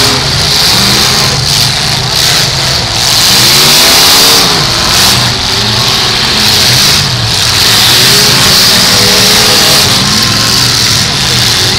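Several V8 demolition-derby cars revving hard at once, their engine notes rising and falling in pitch again and again as the drivers push and ram.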